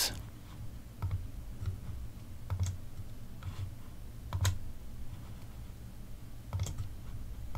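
A few scattered, faint clicks of a computer mouse and keyboard as blocks are selected and deleted in an editor, over a low steady hum.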